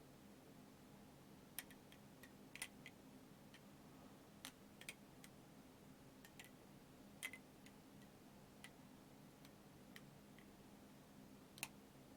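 OSP Matrix balisong (butterfly knife) being flipped and handled: about a dozen sharp clicks of the handles and blade knocking together, irregularly spaced, over a faint steady hum.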